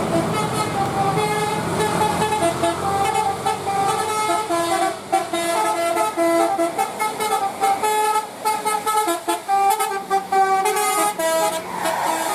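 Bus 'telolet' multi-trumpet horn playing a tune of short notes that step up and down in pitch, some held together, and quicken in the second half. Heard from inside the bus cabin.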